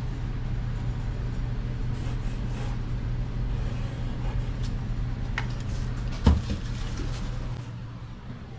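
Light handling noises of a drywall panel held against the wall and marked with a pencil, with a few faint taps and one sharp knock about six seconds in. A steady low hum underneath drops away near the end.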